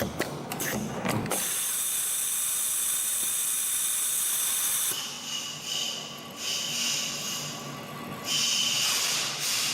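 A CNC extension spring coiling machine running: several sharp mechanical clicks in the first second, then a steady high-pitched hiss and whir of wire being fed and coiled, swelling louder near the end.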